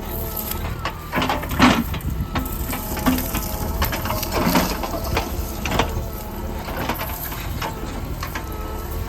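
JCB 3DX backhoe loader's diesel engine running under work, with irregular metallic knocks and clatter from the machine as it doses and levels soil.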